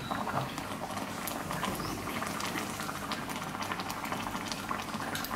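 A pan of spicy soup broth boiling on a gas burner: a steady patter of small popping bubbles.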